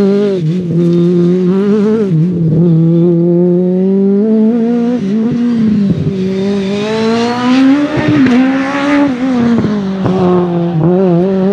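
Peugeot 306 Maxi kit car's 2.0-litre XU10J4RS inline-four running hard at high revs. The revs drop briefly several times and climb again, with a long climb in the second half.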